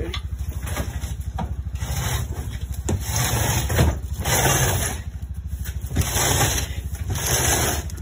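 An engine idling with a fast, even pulse throughout, while a hand truck loaded with a heavy crated generator is wheeled and scraped over concrete and dry leaves, giving bursts of rolling and scraping noise about three, six and seven seconds in.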